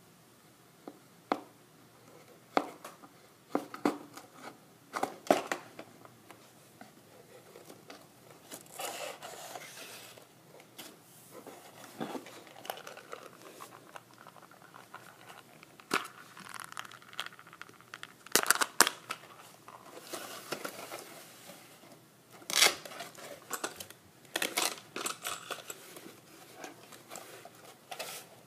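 Hands handling a homemade cardboard-box vending machine and a plastic container: a long string of sharp taps and knocks, with a few longer stretches of plastic and cardboard rustling.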